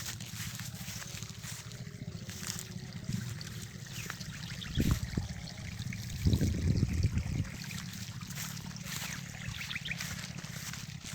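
Water trickling steadily in a small ditch, with a couple of loud low bumps about halfway through.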